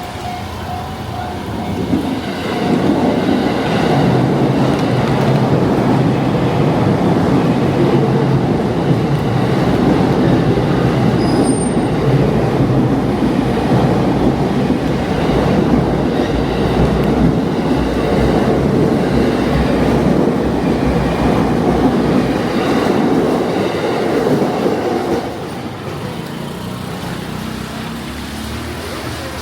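A train passing close by: a loud, steady rumble that swells in about two seconds in, holds for some twenty seconds, then falls away near the end.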